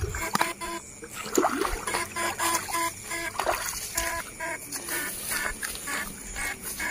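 Shallow paddy water splashing and trickling as the poles of an electric fish shocker are swept through it. Behind it, repeated short croaking calls in quick runs, typical of frogs in a flooded rice field.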